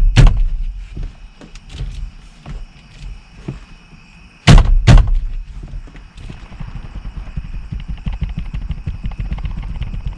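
Heavy thuds as a stuck stock steering wheel is struck and yanked to break it loose from its splined steering shaft: a pair of hard blows at the start and another pair about four and a half seconds in. After that comes a fast run of low rattling knocks as the wheel is wiggled back and forth against the retaining nut.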